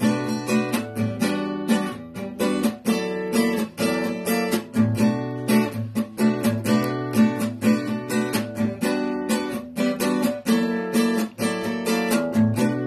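Acoustic guitar strummed in a steady, quick rhythm, an instrumental passage with no singing.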